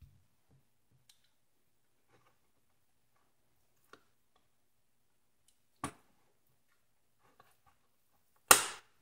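Plastic wire egg slicer pressed shut on a hard-boiled egg, its lid snapping down as the wires cut through: two sharp clicks a few seconds apart, the second much louder. Faint taps and ticks between them from the egg being handled on the slicer.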